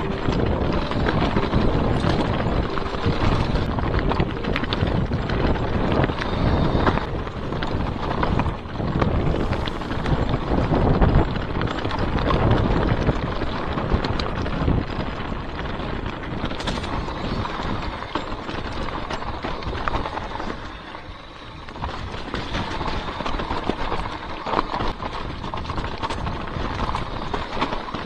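Mountain bike riding fast down a rough trail of stones and dead leaves: a dense, continuous rattle of tyres and bike knocking over rocks, with wind buffeting the camera's microphone. It eases briefly a little past two-thirds through.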